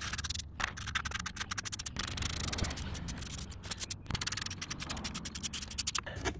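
Ratchet wrench clicking in quick runs, with short pauses, as an 11 mm socket on an extension backs out the front oil pan bolts.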